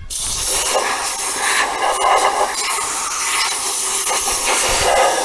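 Compressed-air blow gun on a workshop airline blasting a loud, steady hiss of air into the hollow steel section of a 1974 MGB GT's rubber front bumper, blowing out the rust flakes inside.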